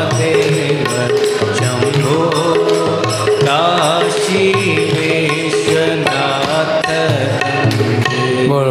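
Indian devotional bhajan music: a pitched, ornamented melody over a steady hand-drum rhythm, with no sung words.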